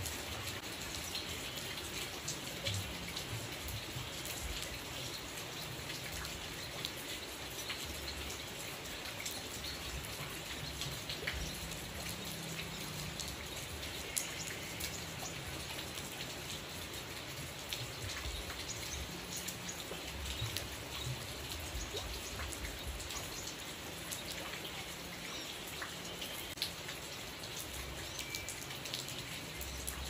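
Steady rain falling through a leafy tree, with many small, sharp drop taps scattered through the hiss.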